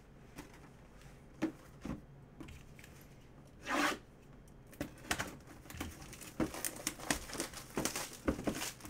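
Plastic shrink wrap being torn and crinkled off a cardboard mini-helmet box. After a few knocks, the tearing is loudest about four seconds in, then goes on as a run of rapid crackles.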